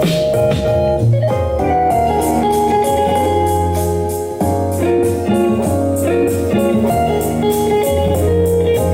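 A music track with guitar over a steady bass line, played back through a portable speaker.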